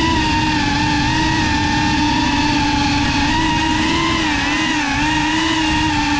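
GEPRC CineLog35 FPV drone's motors and propellers, heard from the camera on board: a steady whine whose pitch wavers up and down with the throttle, over a low rush of prop wash.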